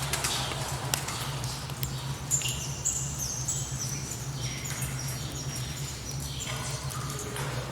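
Dark-cave ambience: a steady low drone under a busy layer of high-pitched bat squeaks and chirps that step down in pitch, with scattered clicks and water drips.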